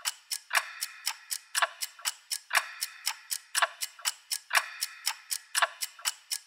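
Clock ticking steadily: quick sharp ticks about four a second, with a stronger tick once a second.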